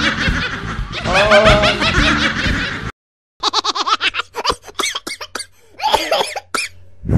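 Laughter sound effects: a woman laughing loudly for about three seconds, then, after a short break, a high, rapid snickering laugh in quick choppy bursts. A falling tone begins right at the end.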